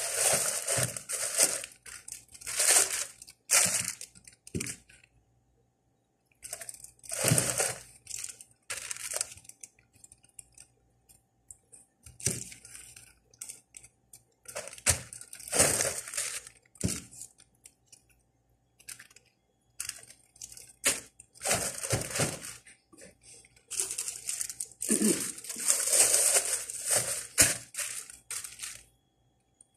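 Thin plastic bags crinkling and rustling as hands rummage through them, in bursts a few seconds long with short pauses between.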